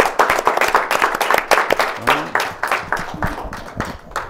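Audience applauding, the clapping thinning out and fading toward the end.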